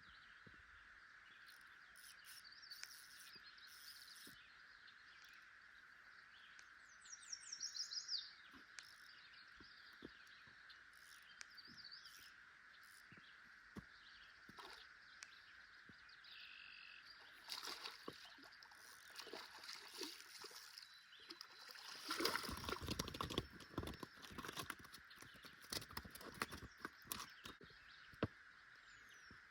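Quiet lakeside ambience: a faint, steady high-pitched drone, a short bird chirp about seven seconds in, and scattered clicks. From about halfway through there is rustling and knocking handling noise, loudest a little later.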